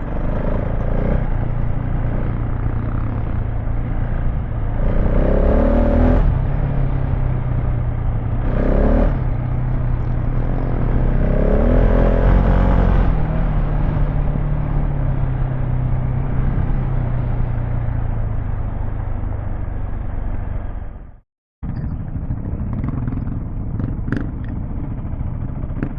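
Off-road motorcycle engine running under way over rough ground, with three short bursts of throttle that raise its pitch about five, eight and twelve seconds in, and clattering from the bike. The sound drops out for a moment near the end, then the engine carries on.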